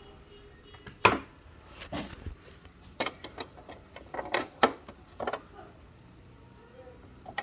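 Irregular clicks and knocks from hands working an Elna 6200 Decorator's Touch sewing machine, about seven sharp ones over several seconds, the loudest about a second in.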